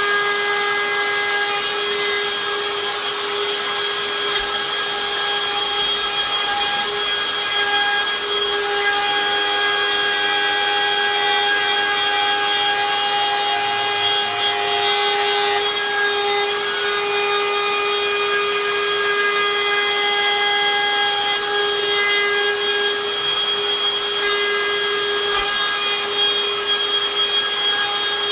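Hikoki cordless router running steadily under load, its cutter routing a lock mortise into the edge of a wooden door. The motor holds an even, high whine.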